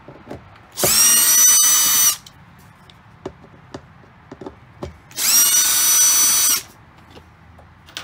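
Cordless drill driver running twice, in two steady whines of about a second and a half each, backing out the screws that hold a control panel to the wall. Small handling clicks come between the runs.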